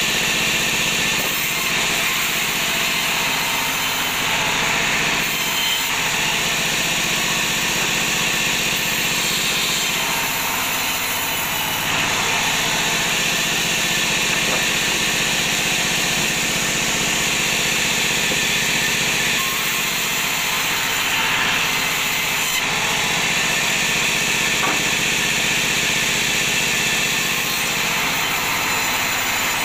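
Sawmill bandsaw running steadily while ripping teak offcut slabs into boards: the blade cutting through the wood over the machine's constant hum.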